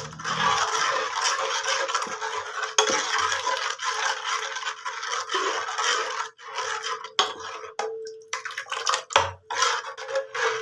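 A utensil stirring and scraping in a bowl, mixing a yogurt, ground-dal and water batter for kadhi. It stirs continuously for about six seconds, then goes on in separate short strokes.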